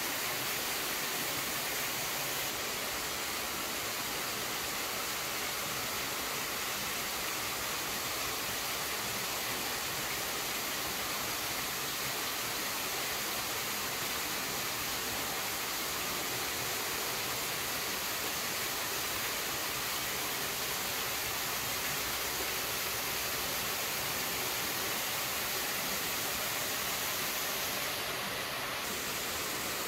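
A steady, even hiss that holds the same level, with no distinct events.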